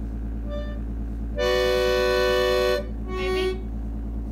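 Vintage electric organ sounding single keyed notes: a short faint note, then a long held note of about a second and a half, then a shorter note that wavers in pitch, over a steady low hum.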